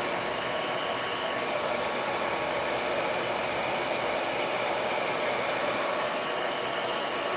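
Handheld hair dryer blowing steadily, drying freshly brushed PVA paint on a wooden board: an even rush of air with a faint motor whine.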